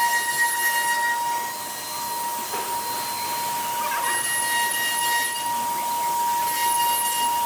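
Spindle of a 1325 CNC router running while routing wood, a steady high whine over a hiss of cutting.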